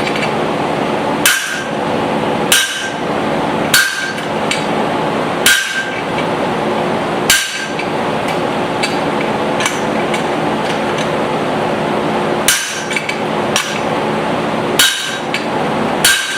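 Hand hammer striking a guillotine tool to neck down hot steel for a small hammer head. The blows are sharp and irregular, one to two seconds apart, each with a short metallic ring. In the middle come a few seconds of only light taps before the blows resume. A shop fan hums steadily underneath.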